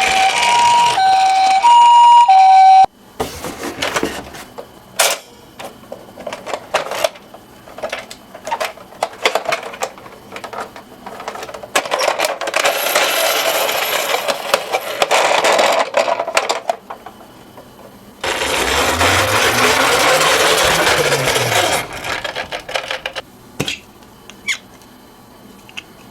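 A two-tone 'pee-po' ambulance siren alternating between two notes for about three seconds, then cut off suddenly. After it come scattered clicks and knocks and two longer stretches of rattling as toy minicars roll and clatter down a slope.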